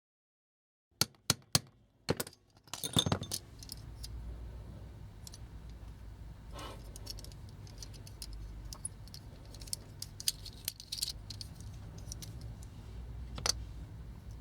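Small hard toy parts being handled: a few sharp clicks and a brief clatter about a second in, then scattered light clicks and taps over a low steady hum.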